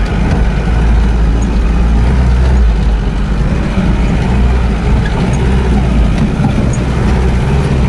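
Motor vehicle driving over a rutted muddy dirt track, heard from inside the cabin: a steady low engine and road rumble.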